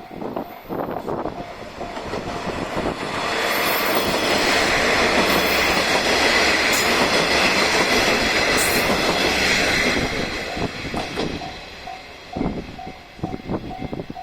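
Three-car JR Shikoku 1200-series diesel railcar passing slowly: wheels clicking over rail joints, with the diesel engine and running noise swelling to loudest in the middle, then falling back to wheel clicks. A level-crossing warning bell dings faintly and steadily near the start and again near the end.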